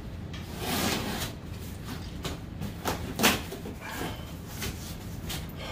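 Cardboard shipping box being opened by hand: packing tape scratched at and torn and the cardboard flaps handled, with a sharp knock against the box a little over three seconds in.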